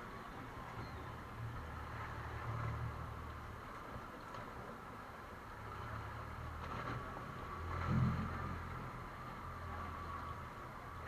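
Three Yamaha 250 hp outboard motors running at low manoeuvring speed, a steady low rumble, with one brief louder swell about eight seconds in.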